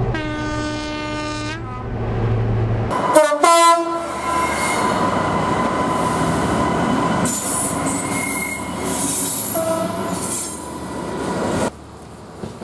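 A train horn holds one steady note for about a second and a half. After a cut come two short, loud horn blasts. Then a passing train's wheels rumble on the rails with a thin steady squeal until the sound cuts off abruptly near the end.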